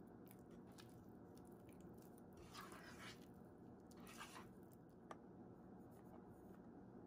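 Faint scraping of a silicone spatula folding flour into thick chocolate batter in a bowl: two brief scraping passes about midway, then a small click.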